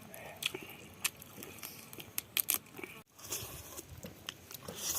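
Close-miked eating sounds: a person chewing food, with many sharp mouth clicks and smacks and a brief break about three seconds in.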